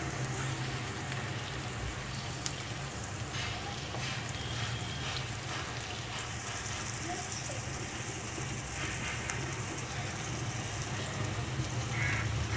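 Chopped onions, garlic and green chillies sizzling in hot oil in a kadai: a steady crackling hiss over a low steady hum.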